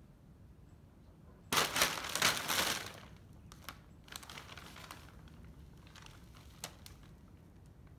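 Thin plastic bag crinkling loudly for about a second and a half as a cat pounces on it, then softer, scattered crinkles as the cat paws and tugs at it.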